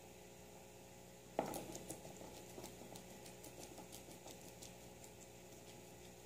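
Guinea pig eating leafy greens: a sharp knock about a second and a half in, then quick, irregular small crunching clicks of chewing.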